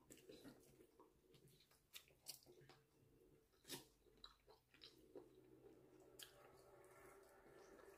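Faint close chewing of lamb meat, with a scattering of soft, brief mouth clicks over quiet room tone.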